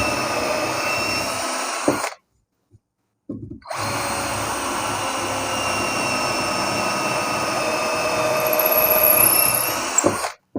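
Cordless drill running at high speed, boring into wood with a 6 mm HSS wood bit in two steady runs with a short pause between them. The bit is dull, so the drill is being pressed hard into the wood.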